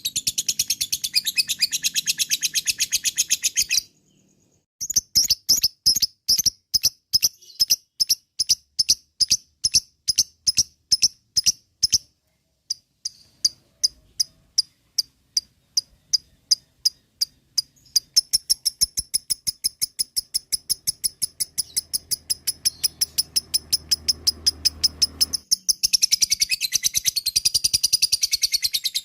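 Lovebird 'ngekek': long runs of shrill, sharp 'kek' chirps repeated about three times a second. The runs break off briefly twice and turn denser and faster near the end. This is the excited, long chattering call that is played to provoke other lovebirds into calling.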